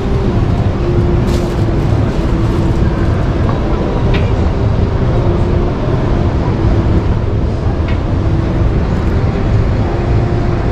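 Busy exhibition-hall ambience: the voices of many visitors blending into a steady murmur over a low hall rumble, with a few faint clicks.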